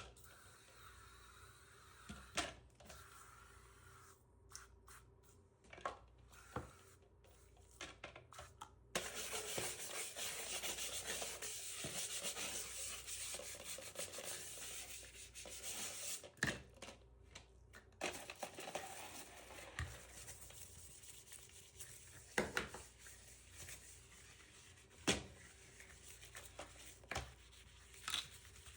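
Household cleaning sounds: scattered clicks and knocks of things being handled, and a stretch of hard rubbing on a surface from about a third of the way in for around seven seconds.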